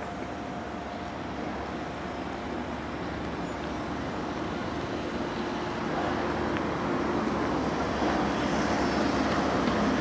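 Road traffic running steadily with a low engine hum, growing gradually louder.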